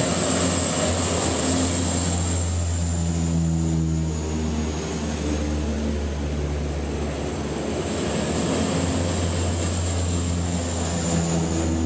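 Recorded airplane engine sound: a steady engine drone with a low hum and a thin high whine.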